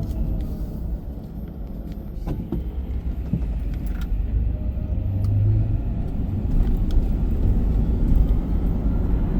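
Car driving on city streets, heard from inside the cabin: a steady low road and engine rumble, with a brief low hum about five seconds in.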